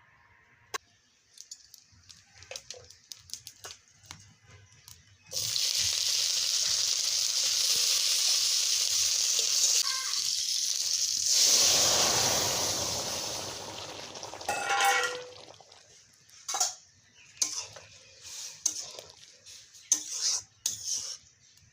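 Food sizzling hard in a hot pan, starting suddenly about five seconds in, swelling again and dying away, followed by scattered clinks and scrapes of a spoon stirring in the pan.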